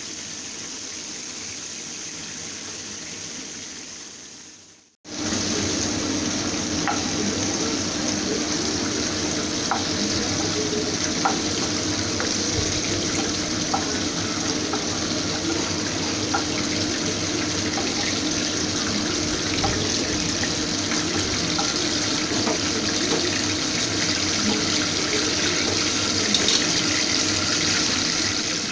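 Shrimp frying in hot mustard oil in a nonstick pan: a steady sizzle with scattered small pops of spattering oil. It is louder after a short break about five seconds in.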